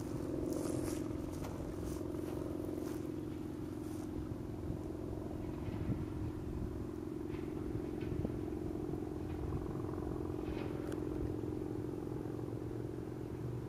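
Small single-engine propeller airplane flying overhead, its engine droning steadily, with a few faint clicks.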